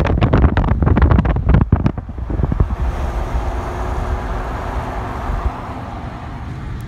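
Wind buffeting the microphone of a moving car, a gusty rumble and crackle for about the first two seconds. It then settles into the car's steady road and engine noise, which drops a little in level near the end.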